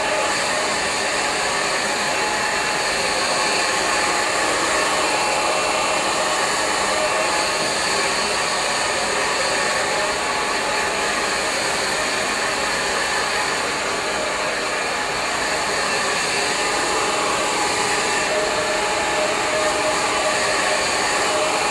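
Handheld hair dryer running steadily at a constant pitch and level, blowing on long hair to brush out a hairspray hold.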